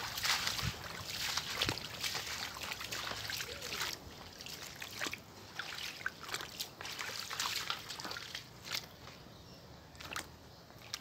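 Footsteps in sandals splashing and sloshing through a shallow, muddy stream, busier in the first few seconds, then sparser steps with scattered clicks.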